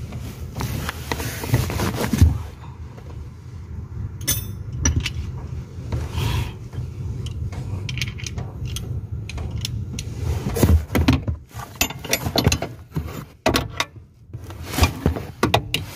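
Metal socket wrench clicking and clinking irregularly on the brake booster's mounting nuts behind the brake pedal, with scattered sharp metallic knocks over a low handling rumble.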